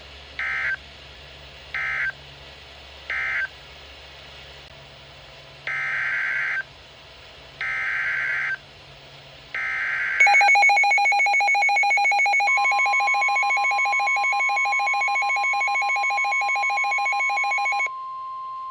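NOAA Weather Radio alert signalling on a Midland WR-100 receiver. First come three short end-of-message data bursts, then three longer SAME header data bursts announcing a new severe thunderstorm warning. Then the receiver's loud pulsing alert beep sounds over the steady 1050 Hz warning alarm tone; the beeping cuts off near the end, leaving the steady tone alone.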